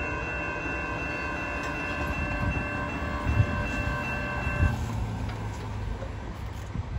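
Grade-crossing warning bell ringing steadily over the low rumble of a departing Metra commuter train, the bell cutting off about four and a half seconds in. Midway through, a car rolls over the crossing and gives two thumps as its wheels cross the rails.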